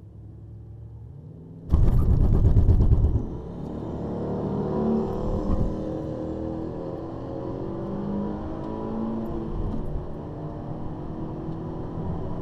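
Holden VF SV6's 3.6-litre V6 idles at the start line, then launches with a loud, juddering shudder for about a second and a half, which the owner puts down to axle tramp from launching at too low an rpm. The engine then pulls hard at full throttle, its note climbing and dropping back at the gear changes, heard from inside the cabin.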